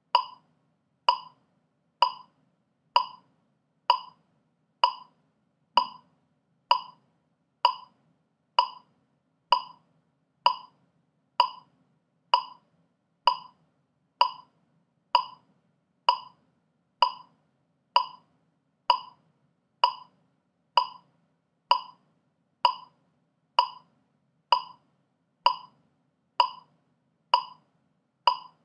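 Metronome clicking steadily at 64 beats per minute: a short, sharp click just under once a second, every click alike.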